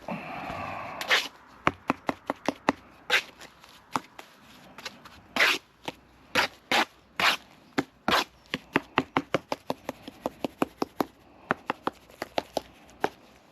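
A brief scraping sound, then a long run of sharp, irregular clicks and taps of hard objects, coming faster in the second half.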